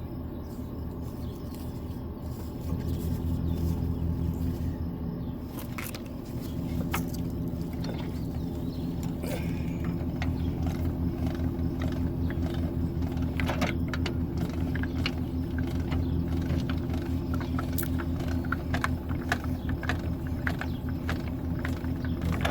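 A truck engine idling steadily, with scattered metal clicks and clanks from about five seconds in as a trailer is hitched to it.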